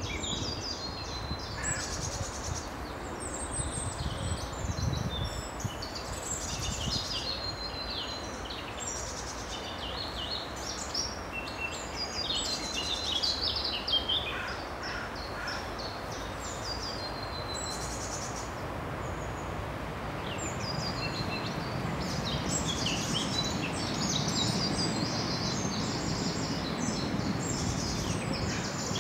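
Several songbirds singing together, many quick high notes and trills overlapping throughout, over a steady low background noise.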